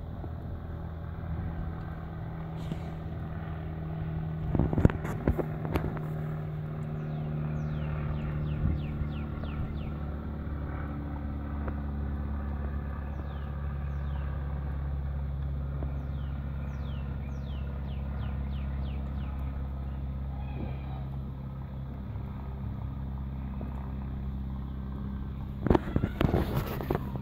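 A steady low motor hum with a few held tones that shift slightly in pitch, under a bird's repeated short falling chirps. A few sharp knocks come about five seconds in, and a cluster of louder knocks near the end.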